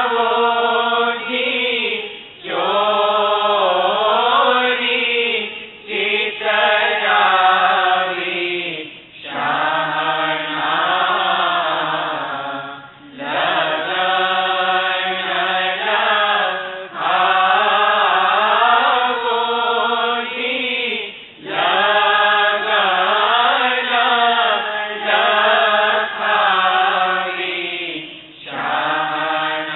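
A voice chanting a devotional recitation in repeated melodic phrases a few seconds long, with brief pauses for breath between them.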